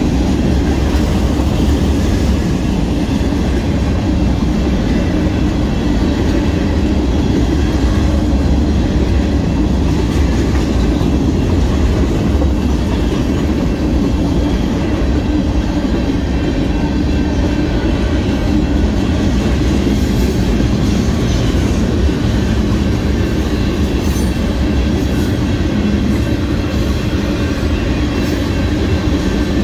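Freight cars of a Union Pacific mixed freight train rolling past steadily, their steel wheels running on the rails with a continuous low rumble.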